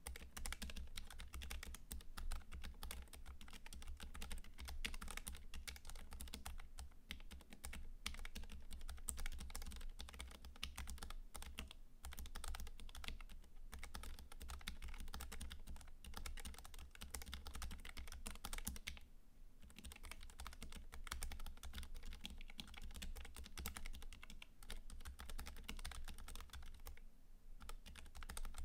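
Steady typing on a low-profile 40% ortholinear keyboard (Boardsource Technik) with tape-modded, lubed Kailh Choc-type Purpz switches under MBK low-profile keycaps. It makes a rapid stream of keystroke clicks, with a few brief pauses about eleven, nineteen and twenty-seven seconds in.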